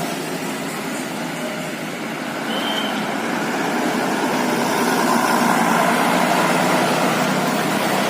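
Tour bus engine running as the bus drives by, growing louder over the last few seconds. There is a short high tone about two and a half seconds in.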